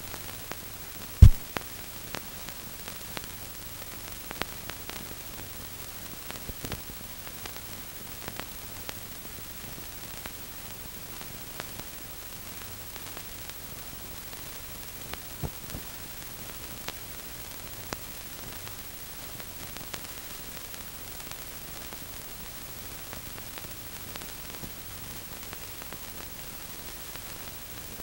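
Steady hiss and low hum of an old film soundtrack, with scattered faint crackles and one sharp pop about a second in.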